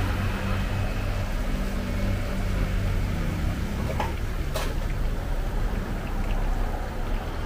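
Oil bubbling and sizzling in a large wok as battered banana fritters deep-fry, over a steady low rumble. A couple of sharp clicks come about four seconds in.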